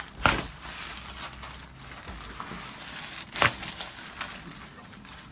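A patient turning over face up on a chiropractic treatment table, with two short knocks: one just after the start and one about three seconds later.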